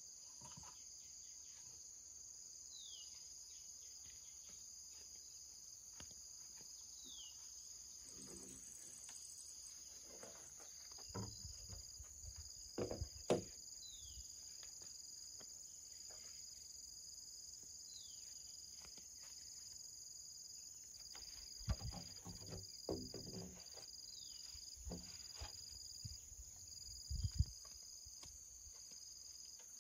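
Steady high-pitched drone of insects. A short falling whistle repeats every four to six seconds, and a few knocks and thumps come through, the loudest about halfway through and near the end.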